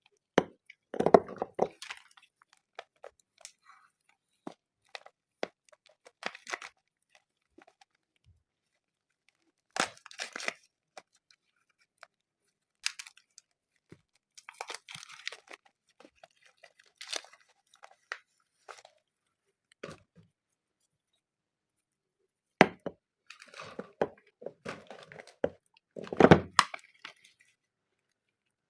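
Bars of soap being unwrapped: wrapping crinkling and tearing in short irregular bursts separated by silent pauses, with some sharp clicks and crunches. The loudest bursts come about a second in and again near the end.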